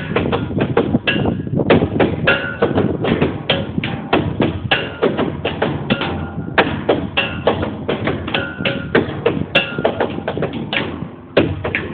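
Improvised percussion: fast, irregular knocking and tapping, some strikes ringing briefly with a pitched tone.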